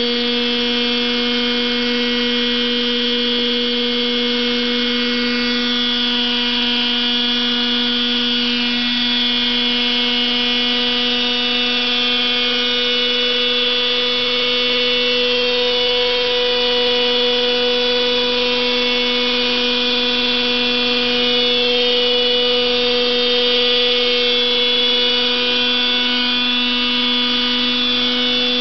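Radio-controlled model helicopter running with its rotor spinning at flight speed, a steady high motor whine over a strong pitched hum. Near the end it lifts from the pad into a low hover, with a slight swell in level.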